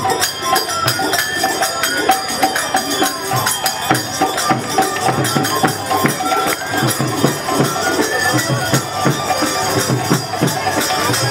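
Bengali kirtan music: a flute melody over a khol drum and clashing hand cymbals, keeping a steady dance beat.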